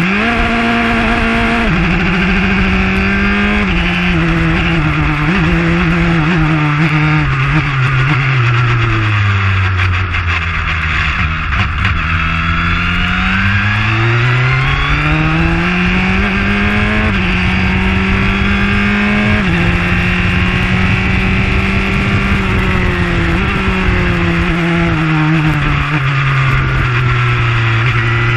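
Onboard sound of a JAF-F4 formula car's engine at racing speed: the engine note climbs and drops sharply at each upshift, falls away under braking and downshifts, then climbs through the gears again before slowing near the end. A steady rush of wind, rain and tyre spray runs beneath it.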